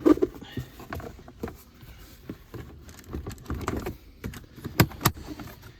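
Plastic centre-console trim around a car's gear shifter clicking and knocking as it is tugged and wiggled: a string of irregular light clicks with two sharper knocks near the end. The piece is still held by another fastener and does not come free.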